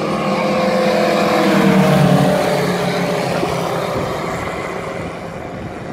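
A formation of eight radio-controlled Tomahawk Wilga scale models, each powered by a Moki five-cylinder radial engine, flying a low pass together. The combined engine drone swells to its loudest about two seconds in, drops in pitch as the aircraft go by, and fades away.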